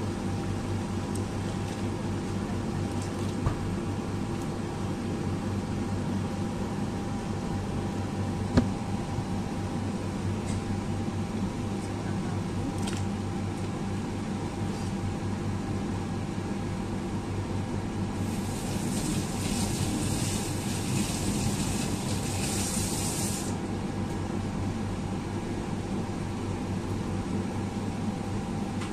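Steady mechanical hum of a kitchen fan or stove, with a pot of soup boiling beneath it. Two light knocks come in the first ten seconds, and a few seconds of hissing come about two-thirds of the way through.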